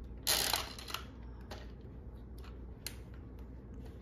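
A plastic toy gumball-style capsule dispenser being worked by hand: a short scraping rattle near the start, then a few faint plastic clicks as its knob turns.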